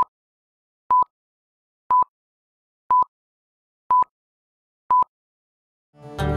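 Film-leader countdown beeps: six short, identical high beeps, one each second, with silence between. Plucked-string music fades in near the end.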